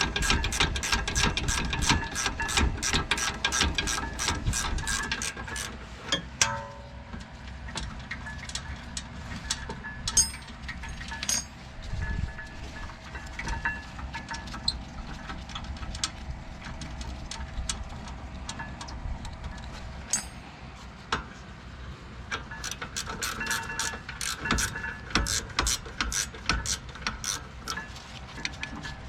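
Ratcheting swivel wrench clicking rapidly, about five clicks a second, as it turns a 19 mm brake caliper bracket bolt. There are two runs of ratcheting, one at the start and one again near the end, with scattered clicks and knocks of tools and metal between them.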